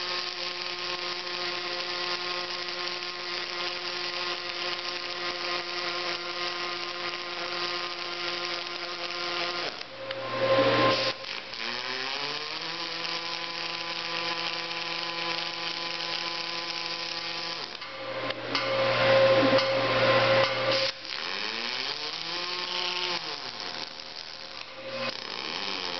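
Robotic welding cell machinery: an electric motor whine that rises in pitch as it speeds up, then holds steady for several seconds. This happens three times, with short, louder bursts of harsh noise in between.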